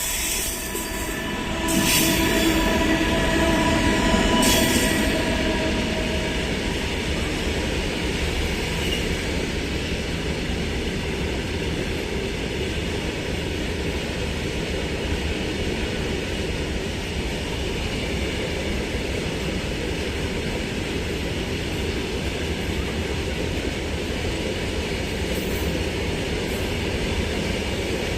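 Coal freight train hauled by a WAG-12B electric locomotive rolling past: a steady rumble of wagons on the rails. It is loudest in the first five seconds, with a held tone and two sharp clanks about two and four and a half seconds in.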